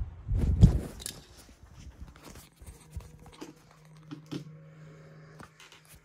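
Handling noise from the recording device: a heavy thump about half a second in, then scattered clicks, knocks and rustles. A faint steady hum runs underneath from about halfway through.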